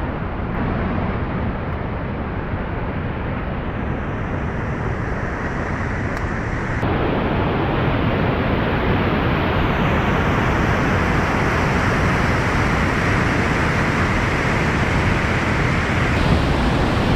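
Steady rush of river whitewater, which steps up louder about seven seconds in.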